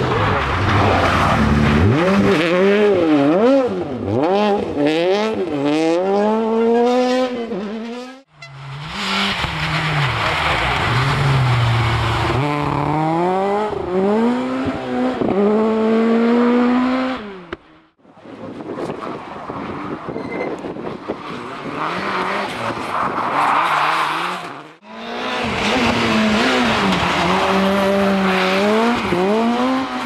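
Rally car engines revving hard, the pitch climbing and dropping again and again through gear changes, in four separate passes that each cut off abruptly.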